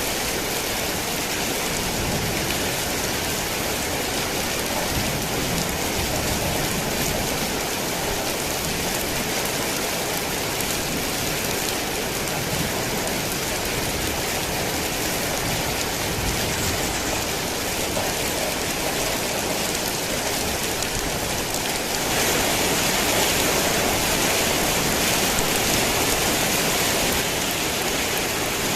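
Heavy rain falling steadily, a dense even hiss of drops, which grows a little louder for about five seconds near the end.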